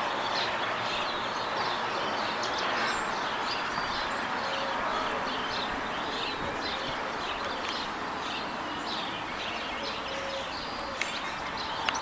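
Small birds chirping faintly and repeatedly over a steady background hiss.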